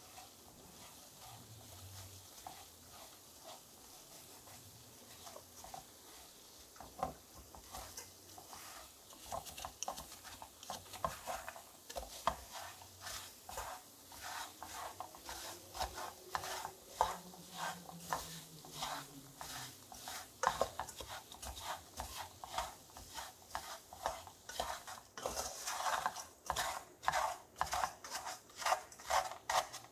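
Wooden spatula stirring and scraping peanuts in an aluminum pot as the sugar syrup crystallizes into a dry, sandy coating. Faint at first, then rattling, scraping strokes from about eight seconds in that grow louder and quicker, to about two strokes a second near the end.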